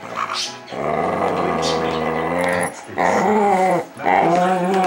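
Dog play-growling while wrestling: one long growl of about two seconds, then two shorter growls that waver in pitch.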